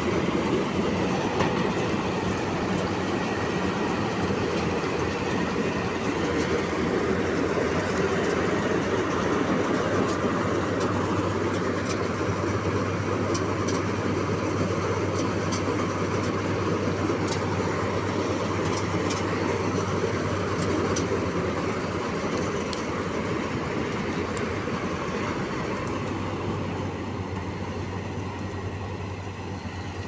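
Preet 987 combine harvester running while harvesting: a steady mechanical din of engine and working machinery, with scattered light ticks. It grows quieter near the end as the machine moves away.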